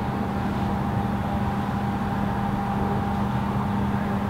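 A steady mechanical hum with a constant low tone and a fainter higher tone, unchanging throughout, with no distinct knocks or clicks.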